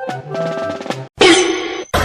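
Short music cue with drums and held notes that stops about a second in, followed by a loud noisy burst that cuts off sharply.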